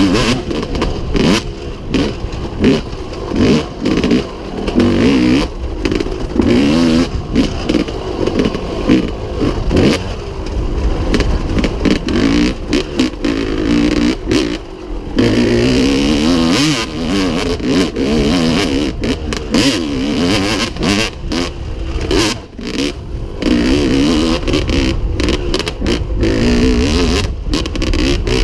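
Two-stroke engine of a 1998 Yamaha WR250Z enduro bike with a Pro Circuit exhaust, revving hard and dropping off the throttle over and over while riding a dirt track, with a raw, rapidly rising and falling note.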